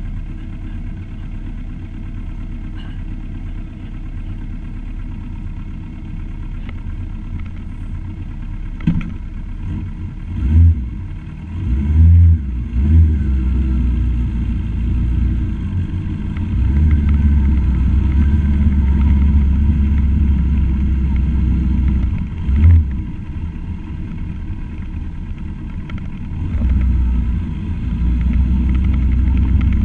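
Steady low rumble of a vehicle carrying the camera, turning into heavy wind buffeting on the microphone once it moves off, with several loud thumps partway through.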